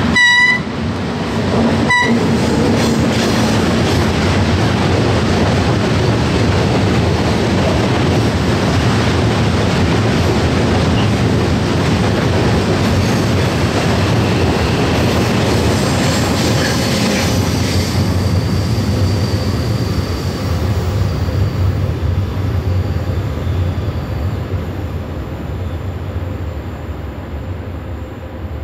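Electric locomotive sounding its horn, a blast of about half a second and then a short one about two seconds in, then the steady rumble and wheel clatter of a long train of loaded coal wagons passing close by, fading near the end.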